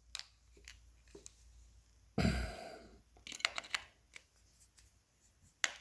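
Small clicks and rattles of a TV remote and its batteries being handled while the batteries are out of it. A short rushing noise comes about two seconds in, followed by a quick run of clicks.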